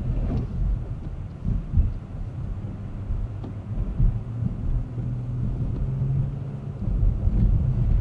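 Low road and engine rumble heard from inside a car as it speeds up on a snowy road, with a few short knocks over it; it grows louder near the end.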